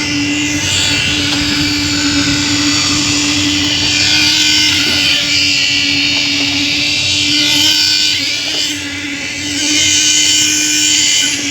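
A motor-driven machine running steadily with a constant hum and a loud hiss, dipping briefly about three-quarters of the way through.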